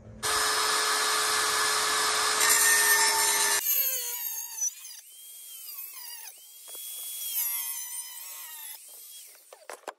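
Angle grinder cutting through an exhaust muffler tip: a steady, harsh cutting noise for about three and a half seconds that stops suddenly. Then the grinder's whine rises, holds and falls away several times.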